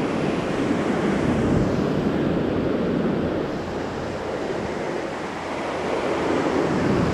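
Gulf surf breaking and washing up the sand, with wind buffeting the microphone; the wash eases a little a little past midway and builds again near the end.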